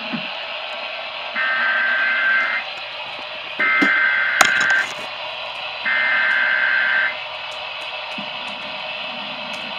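Emergency Alert System SAME data header: three bursts of harsh, buzzing digital data tones, each a little over a second long and about a second apart, over a steady background hiss.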